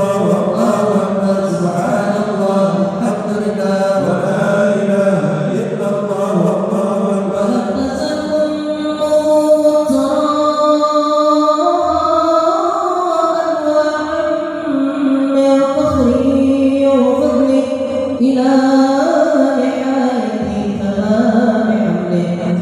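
Sholawat: Arabic devotional chanting in praise of the Prophet, sung in slow phrases of long held notes that step up and down without a break.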